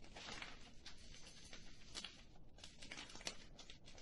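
Faint, irregular crackling and clicking, with a few sharper cracks about two seconds and three seconds in.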